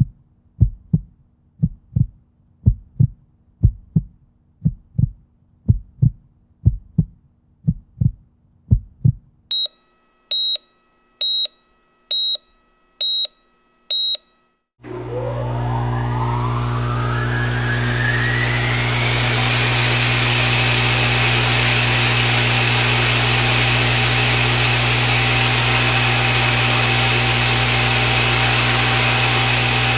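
Low thuds about twice a second, then six evenly spaced high electronic beeps. About halfway through, a loud steady electrical hum comes on with a whine that rises over a few seconds and then holds high.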